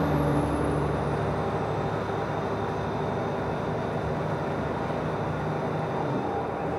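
Nova Bus LFS city bus running, heard from inside the passenger cabin: a steady engine hum and road noise, with a faint high whine that falls in pitch over the first two seconds.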